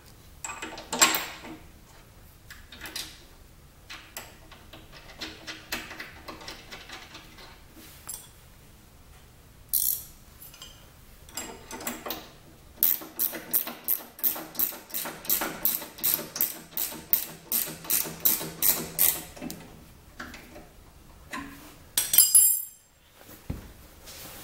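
Ratchet wrench clicking in a steady run of about three clicks a second while tightening a nut on a bolt through a steel mower deck, with scattered light clinks of small metal hardware before and after and a louder clink near the end.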